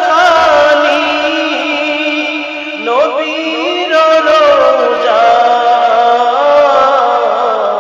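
A man singing a Bengali Islamic gojol in long, wordless, ornamented phrases whose pitch slides and bends, over a steady held drone.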